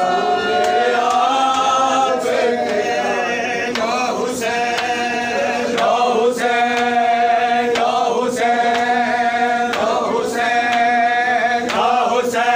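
A group of men chanting a noha, a Shia Muslim lament, together in long held lines that break every second or two, with slaps of chest-beating (matam) under the singing.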